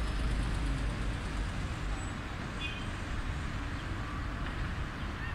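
Steady city road traffic: cars and buses running around a busy roundabout, a continuous low rumble with a few faint short chirps about halfway through.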